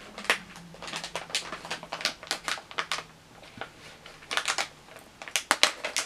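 Plastic candy packaging crinkling and crackling in the hands in quick, irregular clicks as it is pulled and worked at, hard to get open.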